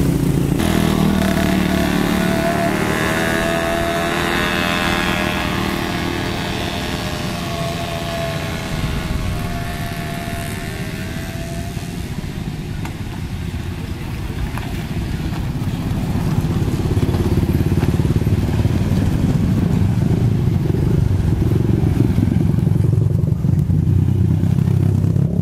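Heavy diesel engine running, with a motorcycle engine getting louder as it approaches near the end.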